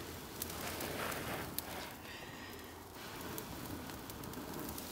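Dry bracken tinder bundle crackling and hissing as it catches from a cramp ball fungus ember and bursts into flame, with a few sharp pops and a breath blown into it near the start.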